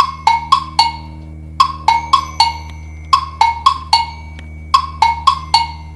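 TikTok ringtone playing: four quick, sharp struck notes, repeated about every one and a half seconds over a steady low drone.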